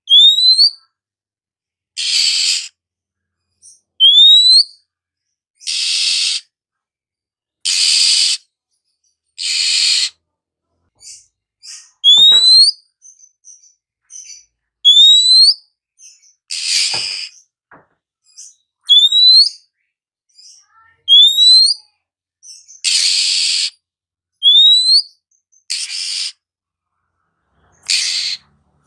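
Oriental magpie-robin (kacer) calling, alternating harsh hissing rasps with short upward-sliding whistles, one call every couple of seconds.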